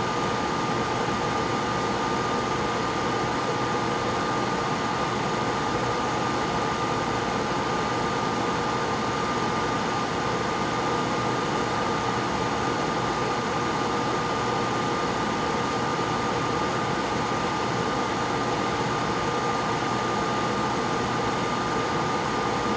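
Steady rushing air from a workbench fan or blower, with a constant high whine over it and no change in level.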